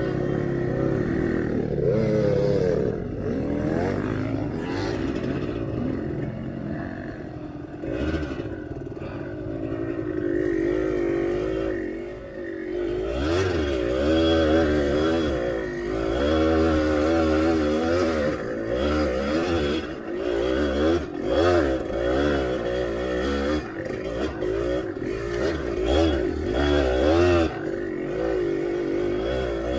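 Kawasaki KDX two-stroke dirt bike engine revving up and down again and again, its pitch rising and falling as the throttle is worked on a slick, muddy trail.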